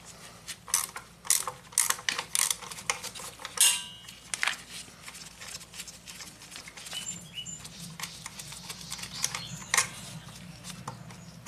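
Metal hand tools clicking and clinking against a motorcycle's shift lever and its fastener as the lever is taken off: a quick string of sharp metallic clicks, with one ringing clink about three and a half seconds in, then scattered clicks.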